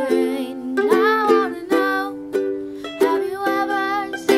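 A boy singing over his own strummed ukulele chords.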